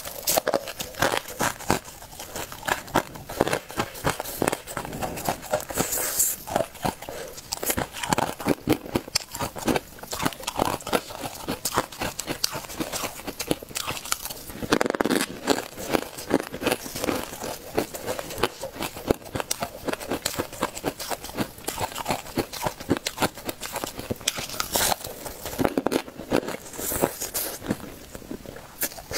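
Crisp crunching and chewing of frozen, frosty ice, bitten off in clumps by hand and chewed close to the microphone. A dense, irregular run of crackling crunches.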